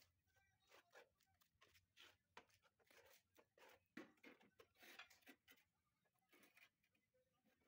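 Faint, irregular scrapes and light clicks of hand tile-setting: mosaic tile sheets being pressed down and worked into adhesive.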